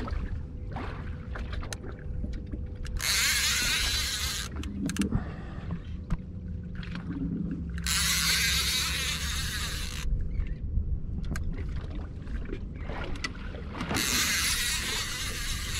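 Sounds aboard a small fishing boat at sea: a low steady hum under a loud rushing hiss that comes about every five seconds and lasts about a second and a half each time, with faint clicks in between.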